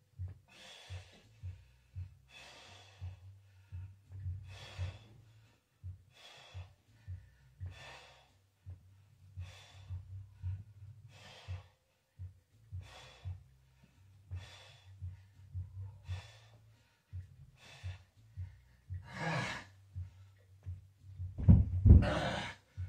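A man exhaling forcefully through his mouth, one sharp breath with each rep of a dumbbell chest press, roughly one every second and a bit. Near the end comes a loud heavy thud as the dumbbells are brought down.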